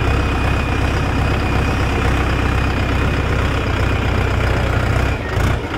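Mahindra 585 DI XP Plus tractor's 50 hp four-cylinder diesel engine running with a steady low hum. It dips briefly near the end.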